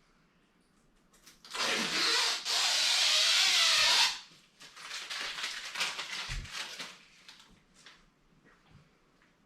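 A handheld power tool running in two bursts, a short one and then one about a second and a half long, with its pitch wavering as the trigger is worked. It is followed by a few seconds of light knocks and handling noise.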